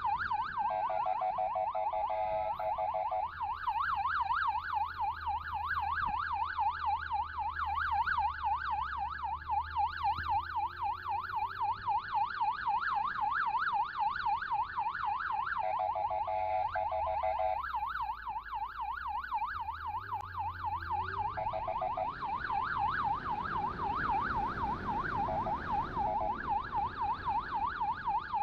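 Motorcycle's electronic siren on a fast yelp, sweeping up and down several times a second. It is broken three times by a steady blaring horn tone, over the bike's low engine hum. A rush of wind noise comes in near the end.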